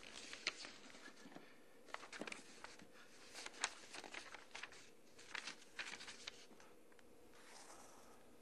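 Faint rustling and light taps of hands handling things, coming in short clusters with quiet gaps between, the sharpest tap about three and a half seconds in.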